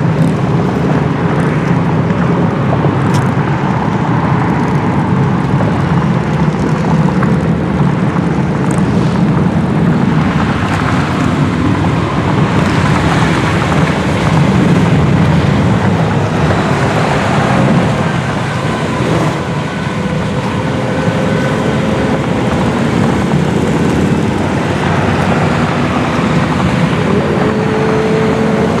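Steady, loud road-vehicle noise: engines and tyres running continuously, with no single event standing out.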